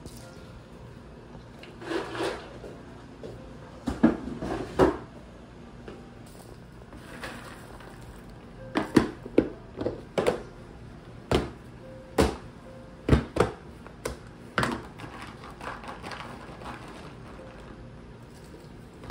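Irregular sharp knocks and clunks of household objects being handled, about a dozen of them, most packed into the second half.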